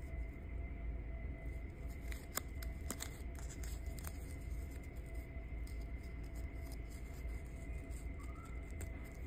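A few light clicks and rustles of hands handling a black cord and a pendant, mostly between about two and four seconds in, over a steady low hum with a faint high whine.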